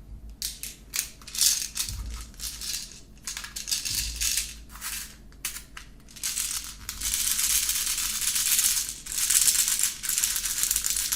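Small plastic toy bullets clicking and rattling as they are loaded into a toy AK-47's plastic magazine: separate clicks at first, then longer stretches of continuous rattling in the second half.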